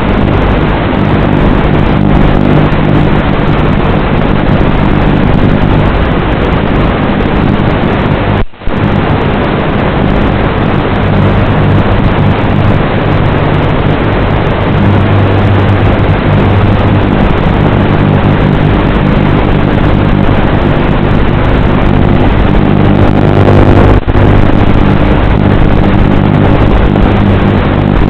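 Small FPV aircraft's electric motors and propellers running steadily with a continuous buzz, with one brief dropout about eight seconds in.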